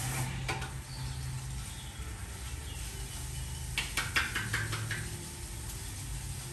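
A quick run of about six sharp claps a little past halfway, from a masseuse's hands struck together with palms pressed, a percussive head-and-face massage stroke. A low steady hum lies underneath.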